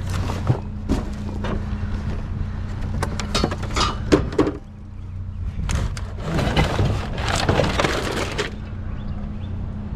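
Junk being rummaged through and handled in a dumpster: scattered knocks and clatters of hard objects, then a longer stretch of scraping and rustling about six seconds in. A steady low engine hum runs underneath.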